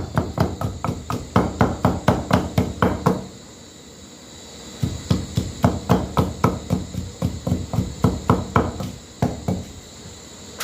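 Spices being pounded by hand with a pestle in a mortar: a quick, even run of strikes about four or five a second, pausing briefly about three seconds in, then going on until near the end.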